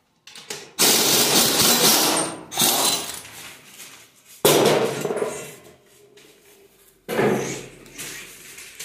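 Several loud bursts of metal clanking and scraping as tools and the exhaust are worked free of a Toyota 1FZ straight-six engine, the longest lasting over a second and a sharp clank about halfway through.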